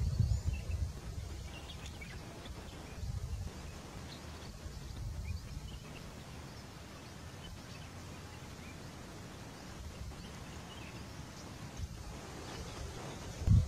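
Open-air ambience with short low rumbles of wind buffeting the microphone: one at the start, then about three and about five seconds in.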